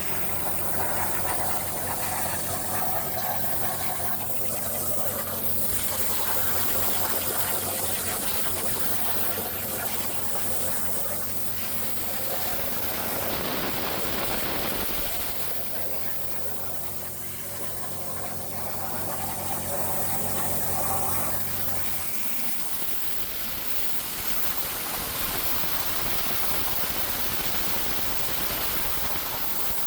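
CNC plasma table cutting 1/2 inch mild steel plate with a Hypertherm plasma torch: a steady hissing rush of the plasma arc and air. Under it runs a steady low machine hum that cuts off about two-thirds of the way through.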